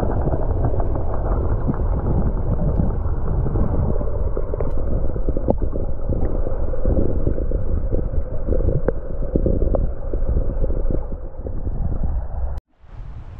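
Muffled, low rush of moving river water, as heard with the microphone underwater, with scattered small clicks and ticks. It cuts off suddenly near the end.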